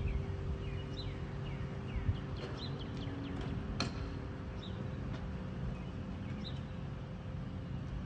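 Outdoor ambience: small birds chirping in short calls over a low, steady rumble of wind and distant traffic, with one sharp click near the middle. No church bell strikes are heard.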